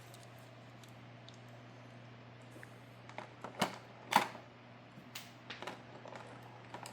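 A few light clicks and taps from handling a die-cast toy car, the loudest two around the middle, over a steady low hum.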